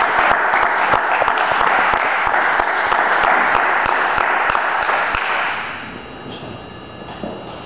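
Audience applauding after a spoken performance, the clapping dying away about six seconds in.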